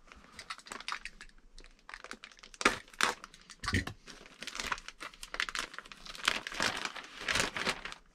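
Plastic parts bags in an RC buggy kit box crinkling and rustling as hands dig through them, with irregular crackles and a couple of sharper clicks around three and four seconds in.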